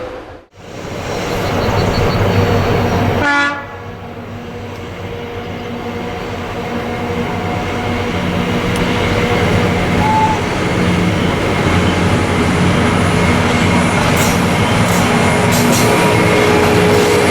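Diesel freight locomotive sounding its horn briefly about three seconds in, followed by the steady running of the heavy diesel locomotive and its loaded freight wagons, growing gradually louder as the train approaches.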